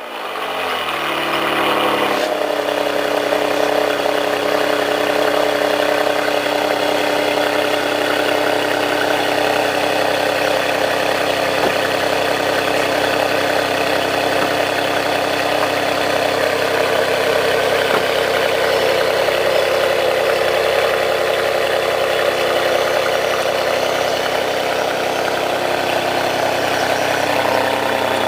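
Ferrari 599 GTB Fiorano's V12 just after start-up, its revs falling off over the first couple of seconds and then settling into a steady idle. The idle steps down slightly near the end.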